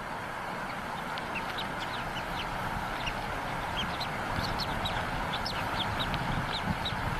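Newly hatched bald eagle chick peeping: many short, high chirps in quick succession, thickest in the middle, over a steady hiss.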